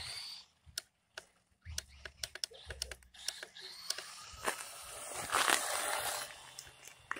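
1/16 TEMI RC tow truck's electric motor whining and rising in pitch as it accelerates over asphalt, with many sharp ticks from the tyres and grit. It is loudest about five to six seconds in, when the truck runs close by.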